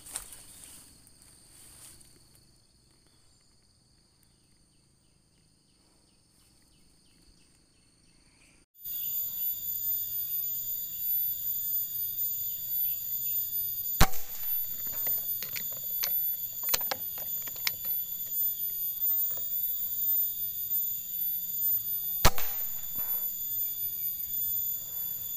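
Air rifle fired twice, about eight seconds apart, as two sharp cracks over a steady high-pitched insect chorus. The first shot is fired empty, with no pellet loaded; the second is the real shot at a squirrel. The first few seconds are near silent before the insect chorus comes in.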